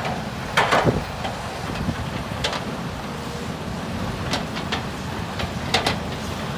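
Ten-wheel truck's engine running with a steady low rumble, the truck stuck in mud. Several short sharp knocks or clacks come at irregular intervals, a cluster about a second in and more later.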